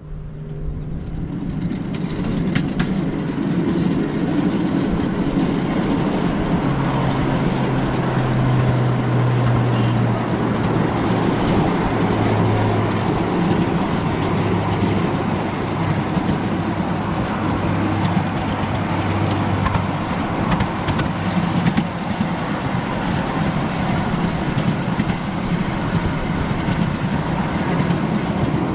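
Ride-on miniature railway train running along its track with riders aboard: a steady rumble of wheels on rail with a low hum that shifts in pitch. The sound grows louder over the first few seconds as the train picks up speed.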